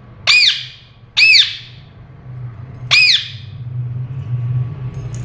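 Indian ringneck parakeet giving three loud, short squawks, each rising and then falling in pitch: two in quick succession, then a third about two seconds later.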